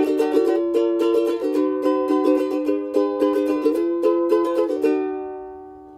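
Outro music: a bright plucked-string tune of quick notes. About five seconds in the picking stops and a last chord rings on and fades away.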